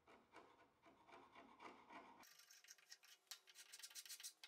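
Faint, repeated scraping strokes of a small carbide scraper taking old glue and dirt off the edge of a wooden table. The strokes turn sharper and scratchier about halfway through.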